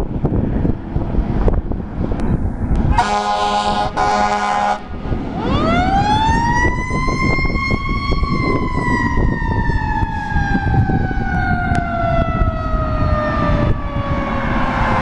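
Fire engine responding: two blasts of its air horn, then its siren winds up to a high pitch and slowly winds back down, over a low rumble of engine and wind.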